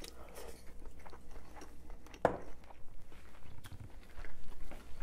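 A man chewing a mouthful of fried rice with chicken, picked up close by a clip-on mic: soft chewing with small wet clicks and smacks, and a short louder mouth sound a little over two seconds in.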